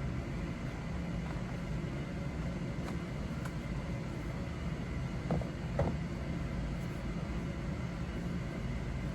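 Steady low background rumble, with two light knocks a little past halfway from the watch packaging being handled.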